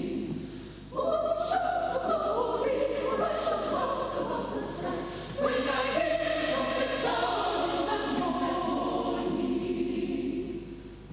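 Mixed choir of men's and women's voices singing a hymn in sustained chords. One phrase comes in about a second in, and a second begins about five and a half seconds in and fades near the end.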